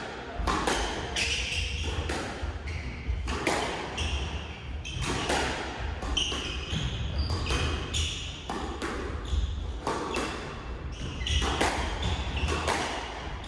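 Squash rally: the ball cracking off rackets and the court walls about once or twice a second, with short squeaks of court shoes on the wooden floor, over a steady low rumble.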